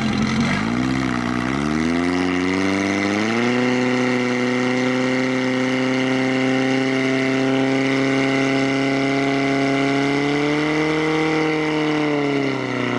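Portable fire pump's engine revving up over the first few seconds and then held at high, steady revs as it pumps water, lifting slightly once more before the revs drop near the end.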